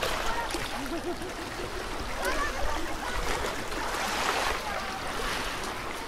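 Calm sea lapping at a pebble shore, with the voices of bathers chattering in the background.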